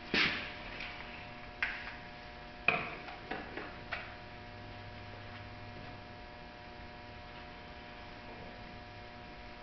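A few sharp clicks and knocks in the first four seconds, from hands and tools working on the car body, over a steady electrical hum that carries on alone after them.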